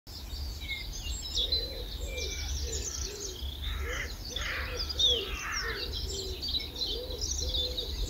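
Outdoor birdsong: many songbirds chirping and trilling together, with a pigeon or dove cooing over and over in a lower voice, over a low steady rumble.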